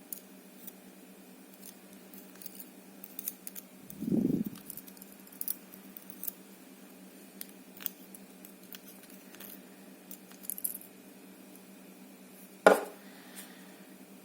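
Small metallic clicks and taps of tweezers and tiny brass lock parts being handled while a spring and a spool pin are loaded into an ABUS 72/40 padlock core. A dull thump comes about four seconds in, and a single sharp metallic clink near the end is the loudest sound.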